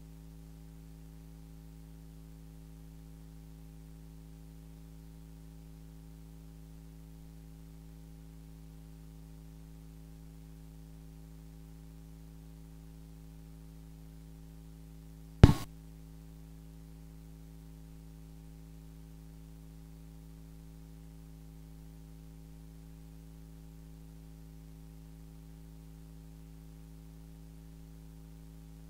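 Steady electrical mains hum with a stack of overtones, broken once about halfway through by a single sharp, loud pop.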